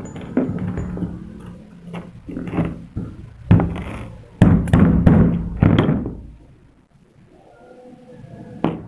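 Knocks and clunks of small steel ferrules and a metal rod being handled and fitted together on a plastic-covered table, a string of separate hits with the loudest ones about four to six seconds in.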